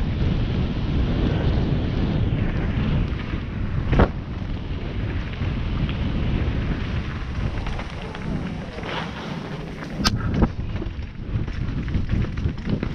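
Wind buffeting the action-camera microphone over the rumble and rattle of a Specialized Stumpjumper mountain bike riding fast down a dirt forest trail. A sharp knock about four seconds in and two more around ten seconds in.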